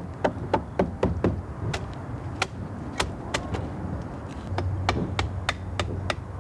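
A hammer tapping nails into hinoki cypress bark roofing: quick, sharp taps, two or three a second, in an uneven rhythm.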